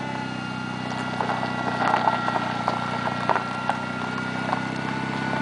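A riding lawn mower's small engine running steadily, with a thin whine over it, and irregular knocks and clatter as it tows a homemade wheeled seat rig over gravel.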